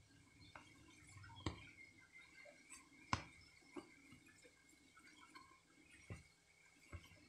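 Near silence: hands working pastry dough in a bowl, heard only as quiet handling with about five faint clicks or taps against the bowl, the loudest a little after three seconds in.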